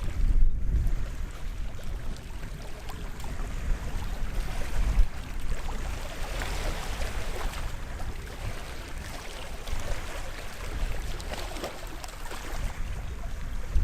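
Small waves washing onto the beach: a steady rush of water with fine crackling as it runs over the shore, and low rumbles of wind on the microphone a couple of times.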